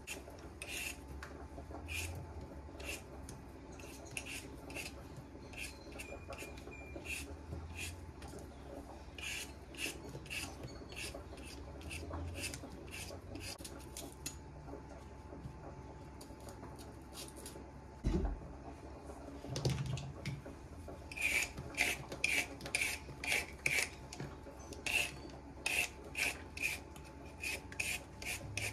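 Hand-held Y-peeler scraping the skin off a raw potato in repeated short strokes. There is a lull and a dull knock about two-thirds through, then quicker, louder strokes as a carrot is peeled.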